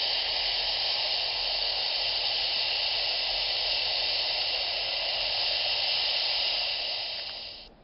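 Aircraft engines heard as a steady rushing hiss while the plane moves along the runway, cutting off suddenly near the end.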